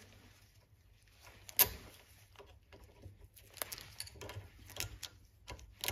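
Faint metallic clicks and scrapes of a steel pick prying a multi-turn spiral retaining ring out of its groove in a ratchet head, with one sharper click about one and a half seconds in.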